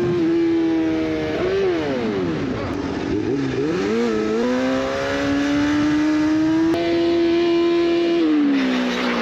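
Sport bike engine running hard through curves. Its pitch drops as it slows about a second and a half in, climbs again as it pulls away about four seconds in, holds steady, then falls again near the end.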